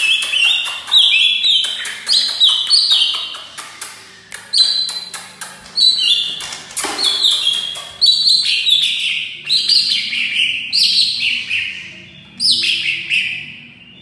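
Caged male green leafbird (cucak ijo) singing nonstop in full voice: a fast string of short, high, chattering phrases about once a second, each sliding downward, full of varied fills. The song stops just before the end.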